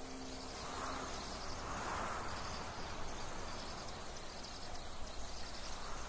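Forest ambience: insects chirping in a faint repeating pattern over a steady hiss of background noise.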